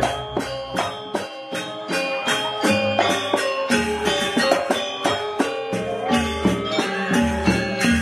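Gamelan ensemble playing Janger dance music: struck metal keyed instruments ring in quick, regular strokes over low booming beats that come every second or two.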